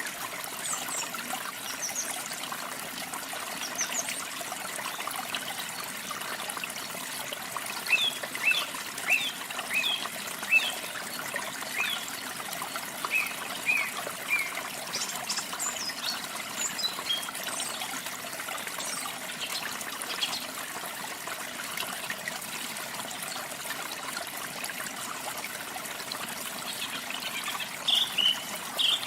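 Steady trickling and splashing of running water from a waterfall, with small birds chirping over it in short quick runs of high notes, busiest about a third of the way in and again near the end.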